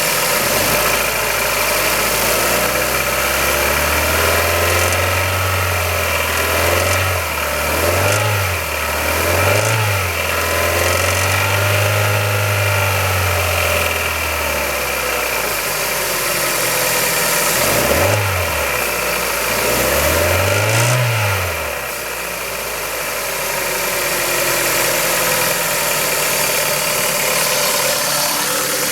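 Kia Ceed's 1.6-litre G4FC four-cylinder petrol engine, cold, idling and then revved several times, its pitch rising and falling with each blip before it settles back to idle near the end. The rattle the owner reports from the cold engine runs with it.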